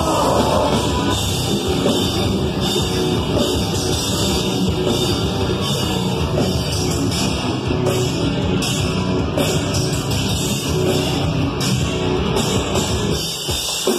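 Live heavy metal band playing loud, with distorted guitars and a pounding drum kit. The low end drops away briefly near the end.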